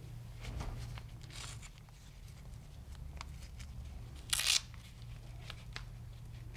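Hook-and-loop straps of a knee brace being pulled open as they are unfastened: a faint rasp about a second and a half in and a louder, short rip about four seconds in, with light clicks of the strap tabs being handled between.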